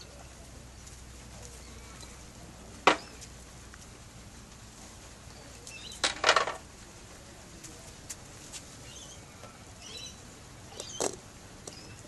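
Outdoor garden ambience with faint, short bird chirps, broken by a few sharp knocks or clatters: one about three seconds in, a quick cluster around six seconds, and another near the end.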